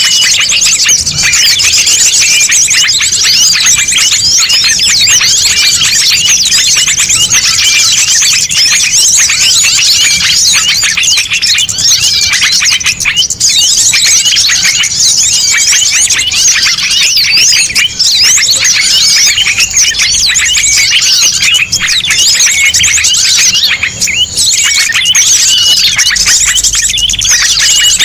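A noisy mixed chorus of many small songbirds chirping and trilling over one another without a break, high-pitched. It is a bird-lure (pikat) recording made to call in small birds.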